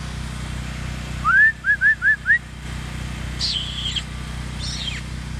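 A person whistling to call a dog: one rising note, then four short, quick rising notes. A little later come two higher, fainter falling whistled calls.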